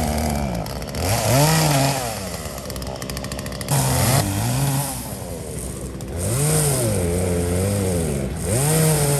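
Chainsaw engine revving up and easing back off several times, its pitch rising and falling as it bites into broken tree limbs and drops to a lower speed between cuts.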